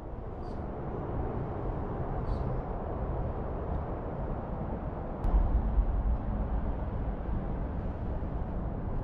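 Outdoor ambient noise: a steady low rumble and hiss, swelling briefly about five seconds in.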